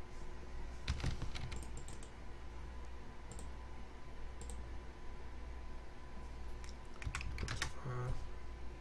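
Scattered keystrokes and clicks on a computer keyboard and mouse, with a quick cluster of them near the end, over a steady low hum.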